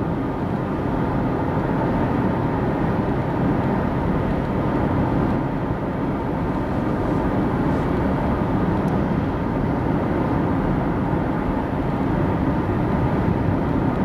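Steady cabin drone of a car with a 2.0 petrol engine cruising in fifth gear at 2000 rpm, about 64 km/h: engine, tyre and road noise heard from inside the closed car, with no change in pitch or level.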